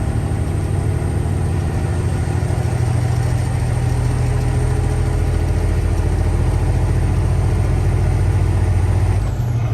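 Semi truck's diesel engine running steadily while driving, heard from inside the cab as a deep, even drone. A thin high whine over it slides down and fades near the end.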